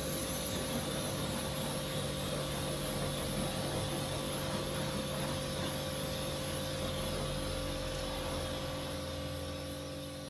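Karcher K4 electric pressure washer running under load: a steady motor and pump hum with the hiss of the high-pressure water jet spraying the car.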